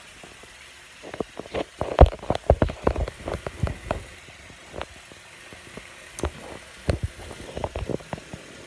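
Bathroom faucet running into a sink of foamy, soapy water, with an irregular scatter of sharp clicks and knocks over it, the loudest about two seconds in.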